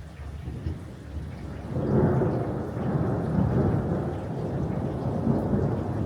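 Thunder rumbling in a rainstorm: a low rumble that swells sharply just before two seconds in and keeps rolling, over steady rain.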